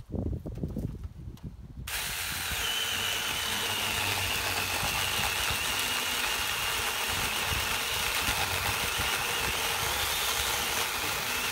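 A few low knocks, then about two seconds in a power tool starts abruptly and runs steadily with a high, wavering whine while it cuts down a cedar porch post so the post sits flush against a board.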